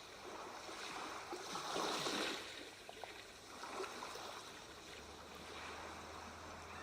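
Soft sea waves washing on a shore, a gentle hiss of surf that swells about two seconds in and then settles.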